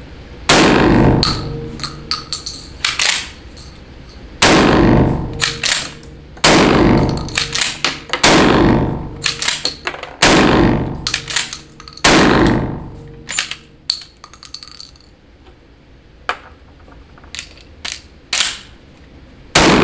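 MAC M1014 gas-operated 12-gauge shotgun firing ultralight target loads, about six shots roughly two seconds apart, each ringing off the range walls, with clacks of the action between shots. The light loads are not making enough gas to cycle the gun. Lighter clicks of the gun being handled follow, and one more loud blast comes at the very end.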